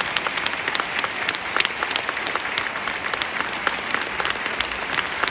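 Concert hall audience applauding steadily: many hands clapping in a dense, even patter.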